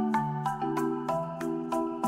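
Background music with mallet-percussion notes at a steady beat, about three to four notes a second over sustained chords.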